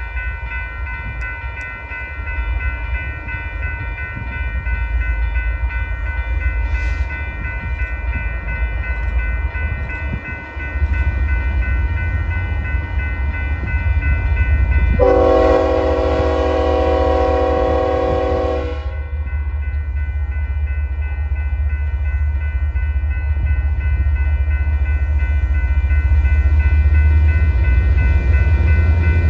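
Union Pacific diesel freight locomotives approaching, with a low rumble growing louder and a grade-crossing bell ringing steadily. About 15 seconds in, one long locomotive horn blast lasts about four seconds.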